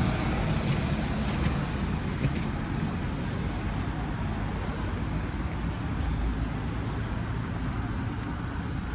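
Street traffic: a steady wash of passing cars, low engine rumble and tyre noise, a little louder at first and easing off slightly.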